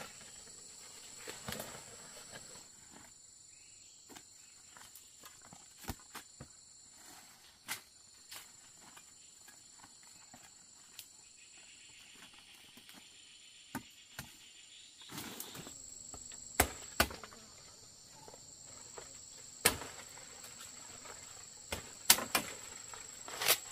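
Steady high-pitched insect chorus, with scattered sharp clicks and snaps over it, several close together in the second half.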